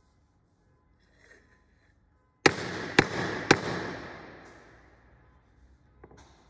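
Three loud, sharp knocks about half a second apart, each ringing out with a long echo that dies away over a couple of seconds.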